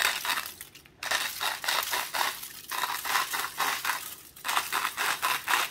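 Sea salt grinder being twisted, its mill crunching salt crystals in a fast grainy crackle, in several bursts with short pauses between them.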